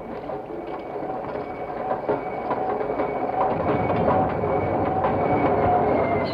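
Recorded railway train sounds: rolling stock clattering and rumbling, with a faint thin squeal-like tone over it, growing louder after about two seconds.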